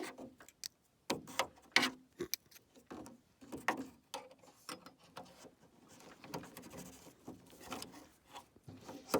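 Irregular metallic clicks, taps and scrapes of a toothed retaining clip being worked onto a new exterior door handle inside a Jeep Wrangler TJ door.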